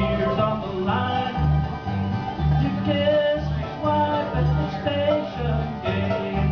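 Bluegrass band playing live: upright bass walking about two notes a second under picked banjo, mandolin and guitar.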